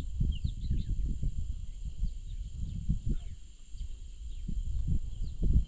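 Wind buffeting the microphone in uneven gusts, with birds chirping and a steady high hiss.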